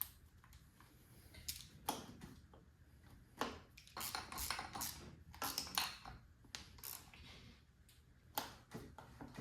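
Light metallic clicks and clinks of small parts and hand tools being handled while a new clutch lever is fitted to the motorcycle's handlebar. The clicks are scattered, with a busier run of them in the middle.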